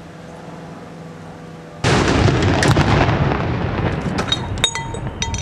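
A small WWII-era howitzer fires one shot about two seconds in: a sudden loud boom whose rumble dies away slowly over the next few seconds. A few sharp metallic clinks follow near the end.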